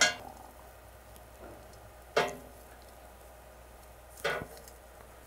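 Metal tongs clacking against a kamado's grill grate as pepper strips are turned: three sharp clacks about two seconds apart, one with a short metallic ring.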